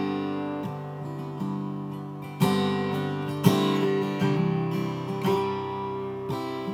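Acoustic guitar strumming chords, about one strum a second, each chord left to ring and fade before the next.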